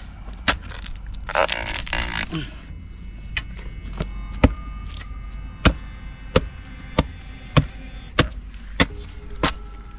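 A long-handled digging tool's flat metal blade hacking repeatedly into the rotten wood of a dead coconut palm stump, a dozen or so sharp chopping blows about one every two-thirds of a second.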